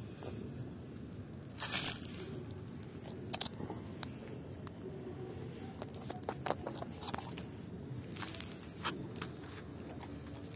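German Shepherd eating raw chicken feet: irregular crunches and cracks as it bites into the bones, the loudest burst about two seconds in.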